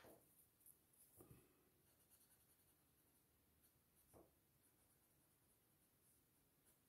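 Very faint sound of a paper blending stump rubbing pencil shading into drawing paper, with two soft taps: one about a second in, one about four seconds in.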